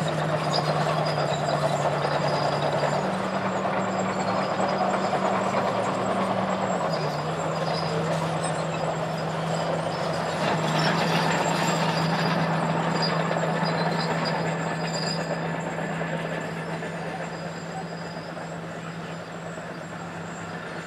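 Diesel engine of heavy earthmoving equipment running steadily under a wide rush of noise. Its pitch steps up about three seconds in and drops back about seven seconds in. It fades somewhat over the last few seconds.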